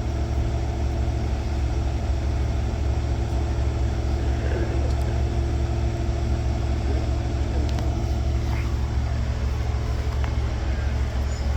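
Heavy truck diesel engine running at a steady speed, a constant low rumble with a steady hum, as it powers the wrecker's winches during a slow lift of a concrete mixer truck.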